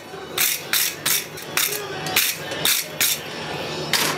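Hand hammer striking red-hot steel on an anvil: a run of blows about three a second, spacing out after the first two seconds, with one last sharp blow near the end.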